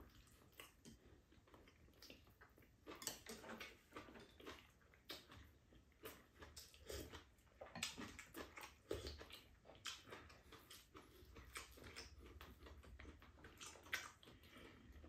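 Faint eating sounds: scattered light clicks of spoons and chopsticks against bowls, with quiet chewing.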